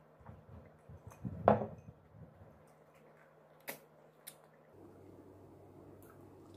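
A glass of cola set down on a wooden tray with one short knock about a second and a half in, followed by two faint sharp clicks of lips and mouth as ripe mango is bitten and eaten.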